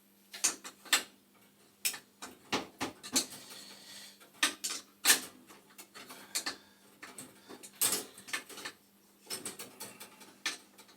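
Irregular metallic clicks and clinks of hand tools and fittings being worked on a gas boiler's pilot assembly as it is taken apart, with short pauses between the knocks.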